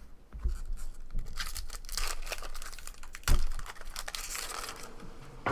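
Plastic wrapper of a Marvel Fleer Retro trading card pack being torn open and crinkled in the hands, with one sharp thump a little past the middle.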